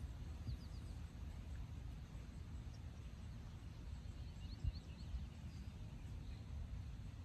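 Outdoor ambience: a steady low rumble of wind on the microphone, with a few faint bird chirps now and then.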